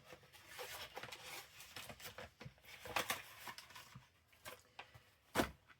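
Paper rustling and light taps as papers and a paper bag are handled, with a sharper knock near the end.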